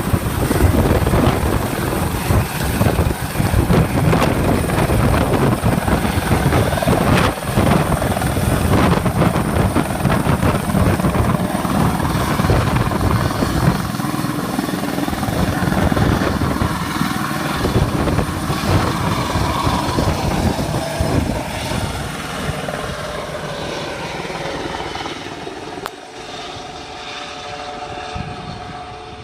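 Helicopter rotor and engine noise, loud and dense at first, then fading steadily over the second half as the helicopter flies away.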